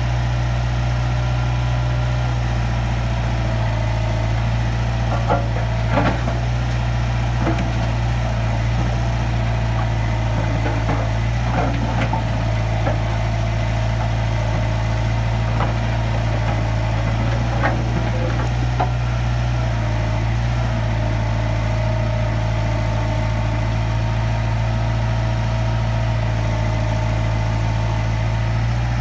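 International Harvester backhoe-loader's diesel engine running steadily, with scattered sharp clanks and knocks from the bucket working rocks during the first two-thirds.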